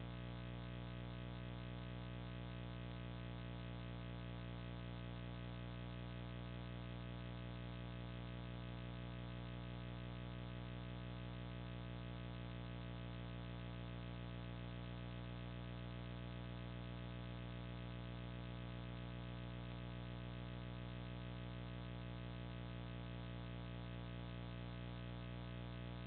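Steady electrical hum with many even overtones and no change in level or pitch.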